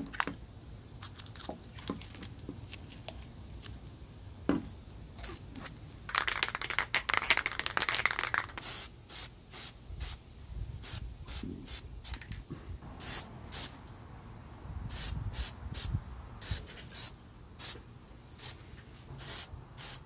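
Rubber coating being peeled and rubbed off a car door handle, then an aerosol can of Plasti Dip rubber coating spraying it in a long string of short bursts from about halfway through.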